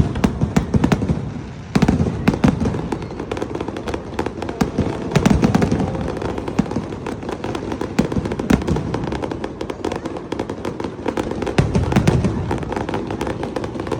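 Aerial fireworks going off: dense crackling and popping throughout, with several low booms.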